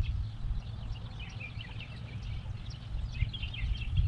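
Several small birds chirping and singing over a steady low rumble of wind on the microphone.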